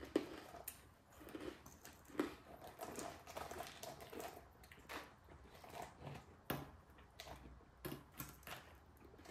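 Quiet, scattered crunches and clicks of freeze-dried candy being chewed and picked out of a clear plastic tub, irregular and a few seconds apart.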